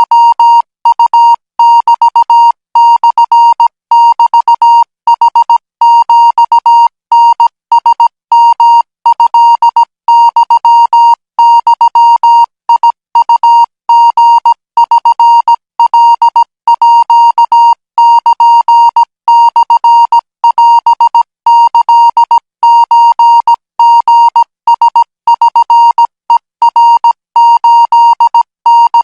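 Morse code practice tone: a single steady beep switched on and off in short dots and longer dashes, sending Thai Morse code at 20 words per minute.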